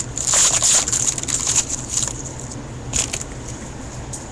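Wrapper of a hockey card pack crinkling and tearing as it is opened by hand: a run of crackly rustles for about two seconds, then one brief crinkle about three seconds in.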